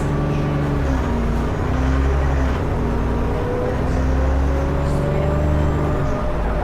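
Alexander Dennis Enviro400 double-decker bus engine running under way, its note dipping and rising again a couple of times, with a faint high turbocharger whistle above it.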